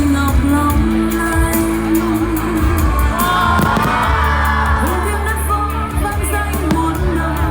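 Pop song about Quy Nhơn with a sung melody over a steady bass line, playing loudly.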